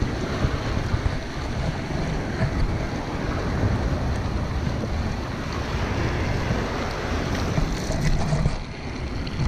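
Wind rushing over the microphone of a bicycle-mounted camera while riding, a steady low rumble with tyre noise from the wet paved path.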